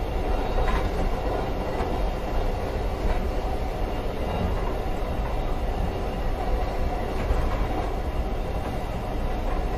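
Passenger train running along the track: a steady low rumble with a few faint clicks from the wheels.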